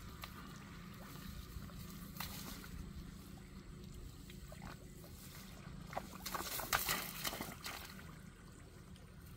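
Sloshing and splashing in shallow muddy paddy water, with rice stalks rustling as someone wades and works among them. Loudest around six to seven and a half seconds.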